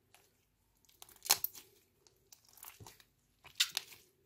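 Hands squeezing and kneading clear slime mixed with lipstick, making sticky clicks and pops in three bursts, the first, about a second in, the loudest.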